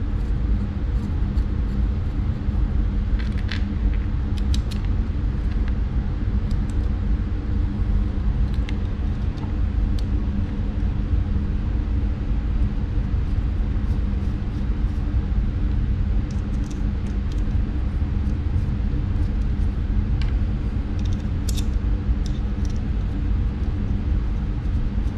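A steady low mechanical rumble and hum, unchanging throughout. A few faint clicks of small parts being handled come near the start and again near the end.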